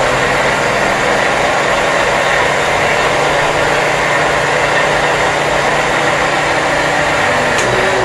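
Countertop blender motor running steadily on speed setting one, puréeing banana with condensed milk and eggs into a smooth batter. It is switched off right at the end.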